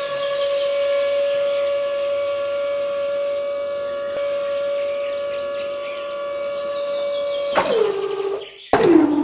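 Small DC motor on a DIY model tractor rig running with a steady high whine. Its pitch falls as it winds down near the end, and it is switched on briefly once more and winds down again.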